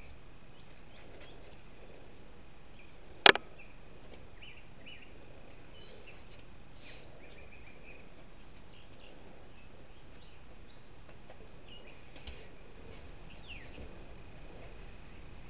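Faint bird chirps over a steady background hiss with a thin, steady high tone, and one sharp click about three seconds in.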